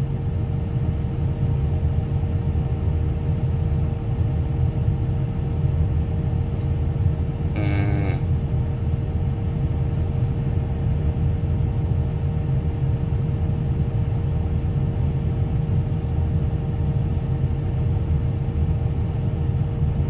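Excavator's diesel engine idling steadily, heard from inside the operator's cab: an even low rumble with a constant whine above it.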